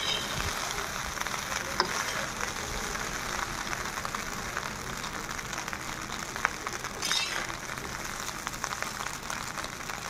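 Chicken fried rice being stir-fried in an iron kadai: a steady sizzle, with the metal spatula scraping and ticking against the pan as the rice is turned, and a brief louder hiss about seven seconds in.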